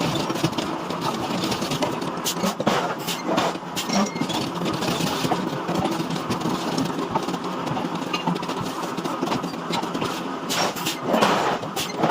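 Heavy forging machinery running steadily, with irregular metal clanks and knocks and a louder stretch near the end.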